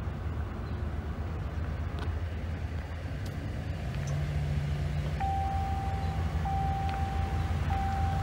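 Car driving along a road, heard from inside the cabin: a steady low engine and road drone. From about five seconds in, a steady high beep sounds for about a second at a time, three times with short gaps.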